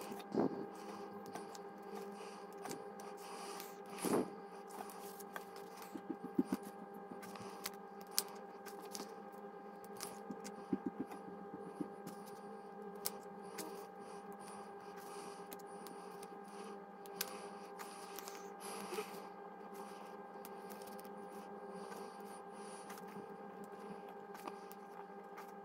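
Light clicks, taps and small scrapes of metal tweezers picking small stickers off a sticker sheet and pressing them onto a paper planner page, over a steady low hum.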